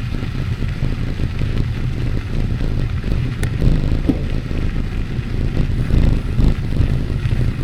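Steady low rumble of riding along a path: wind buffeting the microphone and wheels rolling, with a faint click about three and a half seconds in.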